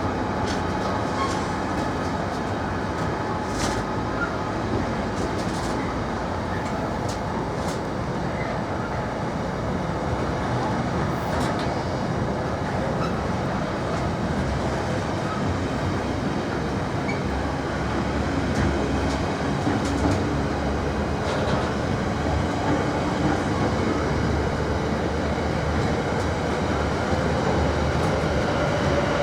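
A train running steadily on the rails: continuous rumble with occasional clicks from the wheels over rail joints, and a faint whine that rises in pitch near the end.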